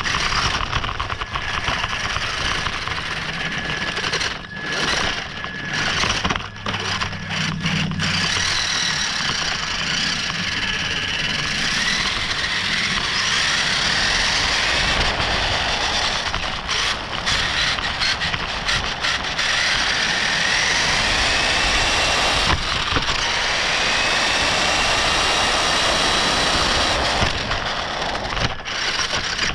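RC car driving with its on-board camera: the motor's whine rises and falls in pitch as it speeds up and slows, over a steady rush of its tyres running on gravel and pavement. The first several seconds are choppier and more broken up.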